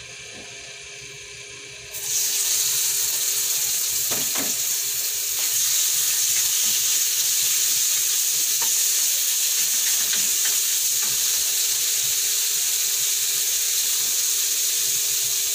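Cubed raw pork liver hitting hot oil in a wok about two seconds in, setting off a sudden, loud, steady sizzle as the liver is sautéed, with a couple of soft knocks from the wooden spatula stirring it.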